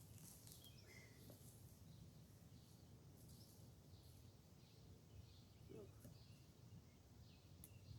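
Near silence: faint outdoor ambience with a low steady hum and a few faint, distant bird chirps.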